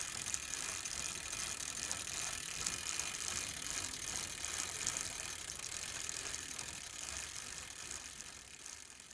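Bicycle freewheel hub ratcheting: a fast, continuous clicking that fades out near the end.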